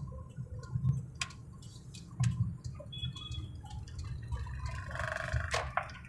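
Low road and engine rumble heard inside a moving car, with scattered light clicks and ticks at irregular moments.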